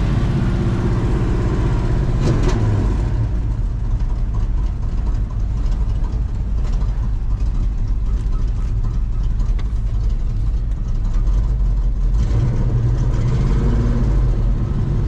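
An old, worn Ford car's engine running with a steady low drone. It is louder for the first few seconds, eases off, then grows louder again near the end.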